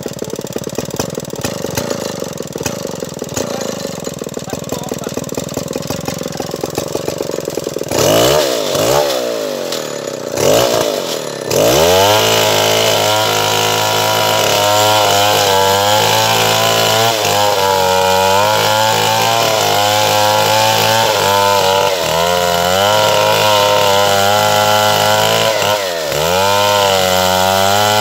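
Stihl 070 two-stroke chainsaw idling roughly, revved twice about eight and ten seconds in, then held at full throttle from about twelve seconds in, its pitch wavering and briefly dipping near the end as it works.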